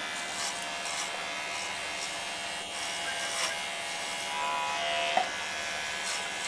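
Electric hair clipper with a number-one guard running steadily as it cuts short hair up the side of the head, with a few small clicks and one brief sharp tap about five seconds in.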